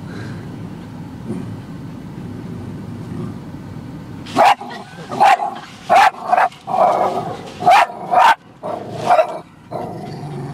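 A dog barking inside a car: about seven loud, sharp barks in quick succession, starting about four seconds in. Under them runs a steady low rumble from the automatic car wash.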